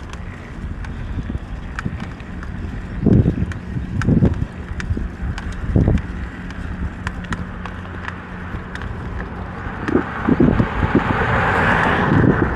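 Outdoor vehicle and wind noise: a low steady hum with heavy rumbling thumps, and a rushing noise that swells about ten seconds in.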